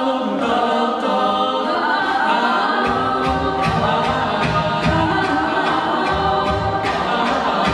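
A cappella group singing: a woman's lead voice over backing vocal harmonies, with a low bass line and a steady beat joining about three seconds in.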